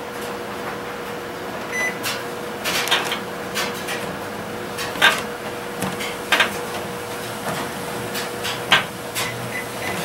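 A steady machine hum with scattered clicks and knocks, and a short electronic beep about two seconds in.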